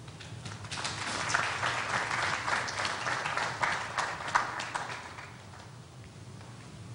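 Audience applauding. It swells about a second in and dies away after about five seconds.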